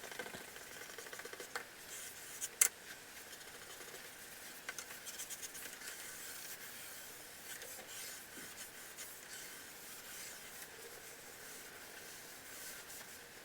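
Faint rubbing and scratching on a large sheet of paper as pencil lines are drawn and erased, with a sharp tick about two and a half seconds in.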